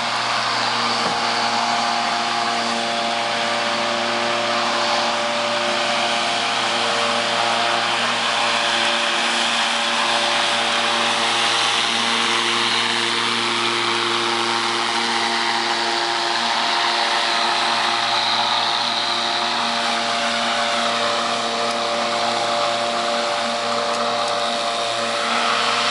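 Battery-powered electric lawnmower with a 48-volt DC permanent-magnet motor running while mowing grass: a steady motor hum with a rushing noise from the spinning blade over it.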